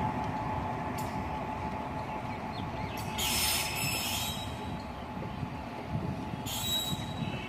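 WAP-4 electric locomotive running light and moving away: a steady rumble of wheels on the rails. Two short high-pitched wheel squeals come through, one about three seconds in and a briefer one near the end.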